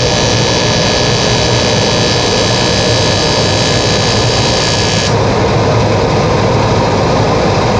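AC TIG welding arc on aluminium, a steady buzzing hiss with a fine whine in it, which cuts off abruptly about five seconds in. A steady machine noise carries on underneath.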